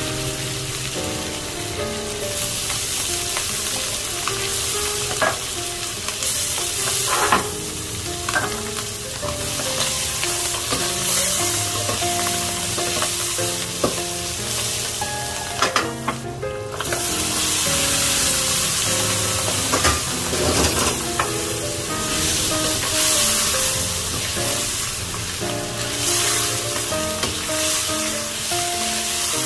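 Food sizzling in a frying pan while being stirred, with a few sharp clicks of the utensil against the pan. The sizzle drops out briefly a little past halfway. A soft background melody plays underneath.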